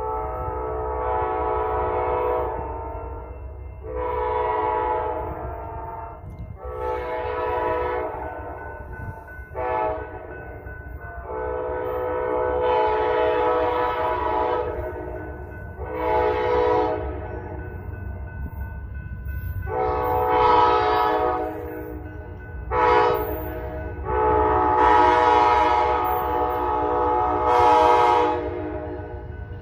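Amtrak GE P42DC locomotive's air horn sounding a chord in a series of long and short blasts, about ten of them, the long-long-short-long crossing warning repeated for successive road crossings as the train approaches. A steady low rumble runs underneath.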